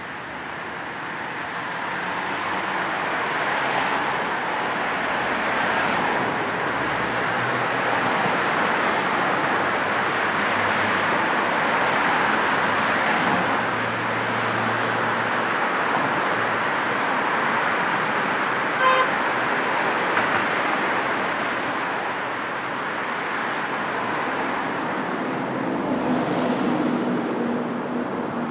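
Road traffic passing steadily, a continuous wash of tyre and engine noise that swells and eases, with one short car-horn toot about two-thirds of the way through.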